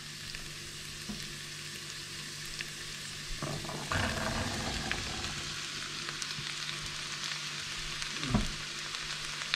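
Chopped onions sizzling in hot lard in a Dutch oven. About three and a half seconds in, cooked pinto beans are tipped in from a bowl with a short rush, and the frying goes on under them, with a brief thump near the end.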